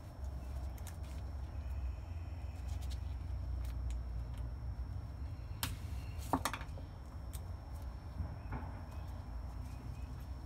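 Brief clicks and taps from brake caliper parts being handled on a workbench, two sharper clicks a little past the middle, over a steady low rumble.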